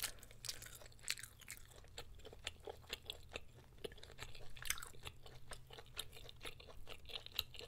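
Close-miked chewing of food: irregular small wet clicks and crunches from the mouth, with the soft sound of chopsticks moving black-bean noodles.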